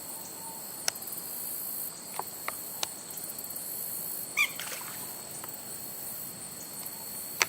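Steady, high-pitched insect chorus, typical of crickets, with a few faint scattered clicks and one short squeaky call about four and a half seconds in.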